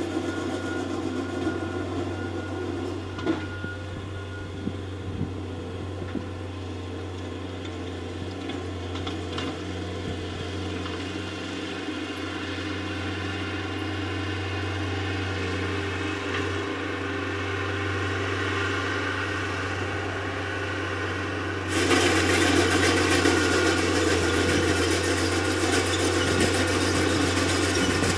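Heavy-equipment engine running steadily with a low hum and a few faint clicks and knocks. About three-quarters of the way in a louder, fuller engine noise cuts in sharply and holds.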